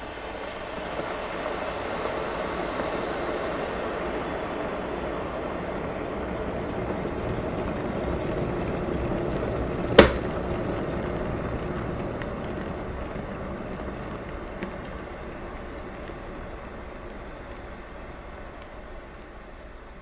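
Water boiling in a kettle: a steady rushing, bubbling noise with no whistle, building up and then slowly dying away. One sharp click about halfway through is the loudest moment.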